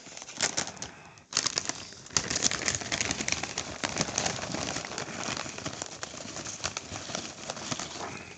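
Foil potato-chip bag crinkling and rustling as it is handled, a dense run of crackles starting about a second in.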